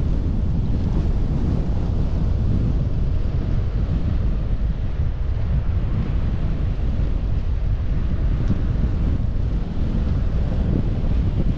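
Wind buffeting a GoPro action camera's microphone while cycling: a steady, loud, low rumble that flutters constantly.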